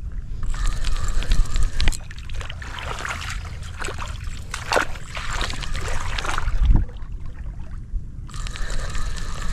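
A spinning rod and reel being handled: the reel whirring as it is cranked for a second or two near the start and again near the end, with scattered clicks in between. A steady wind rumble on the microphone runs underneath.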